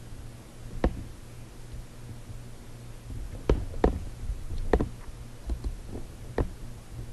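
About half a dozen irregular, sharp computer mouse clicks, with a low steady hum underneath.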